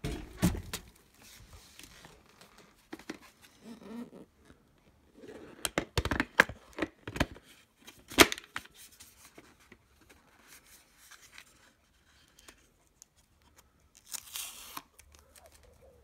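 Hard plastic clicks and knocks from handling a Hart cordless stick vacuum's clear dust bin. There is a cluster of clicks, with the sharpest one about eight seconds in as the bin is fitted back onto the vacuum body, and a brief rustle near the end.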